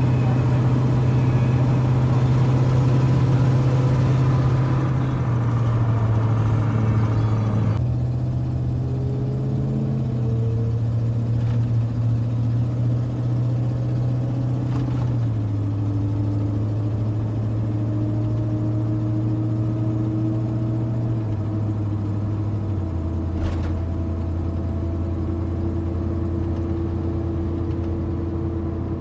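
Steady low drone of a Ford pickup truck's engine and road noise heard from inside the cab while cruising on a highway. The drone drops in pitch in a few sudden steps.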